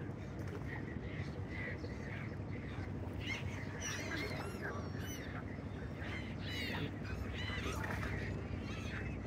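A flock of gulls calling, many short high calls overlapping and growing thicker a few seconds in, over a steady low rumble.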